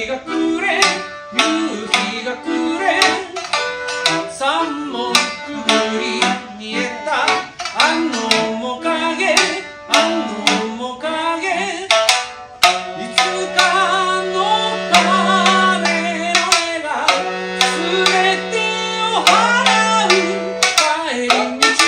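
Instrumental ensemble music with a busy hand-drum rhythm and a melody moving over it. From about 13 seconds in, long held low chords on an accordion sit under it.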